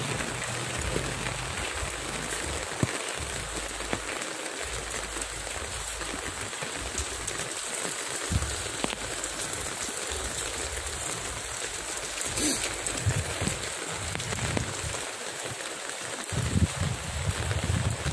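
Steady rain falling on a wet street: a continuous hiss with scattered drop ticks. Low rumbles come and go, strongest near the end.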